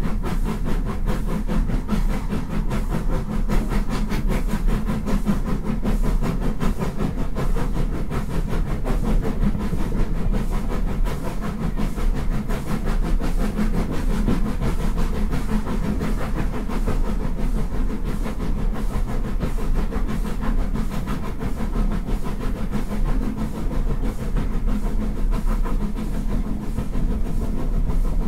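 Steam-hauled heritage passenger train running steadily along the line, heard from the coaches behind locomotive 43924, a Midland-design 4F 0-6-0: continuous rumble of wheels on rail with rapid rhythmic beating.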